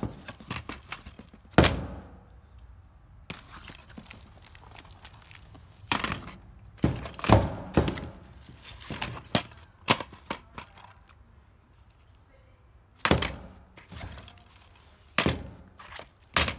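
Plastic DVD cases clacking and knocking against each other as they are handled and shifted by hand in a box. The knocks come irregularly, in small clusters a few seconds apart.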